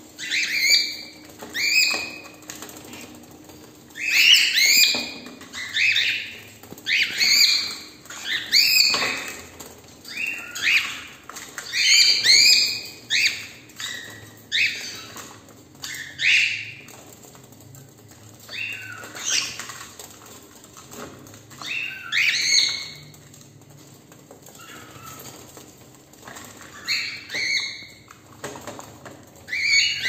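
Several cockatiels calling, with loud repeated calls in clusters every second or two and a short lull about two-thirds of the way through.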